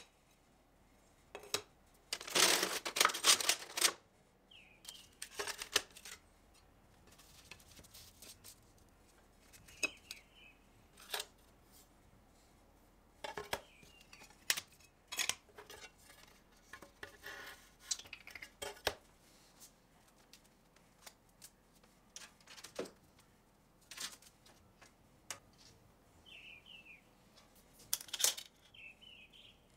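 Stained glass bench work: glass pieces and metal hand tools clicking and clinking against each other and the bench, with a longer scratchy burst about two seconds in.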